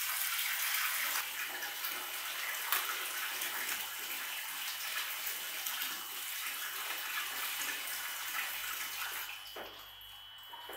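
Water running steadily from a tap in a steady rush. It stops near the end.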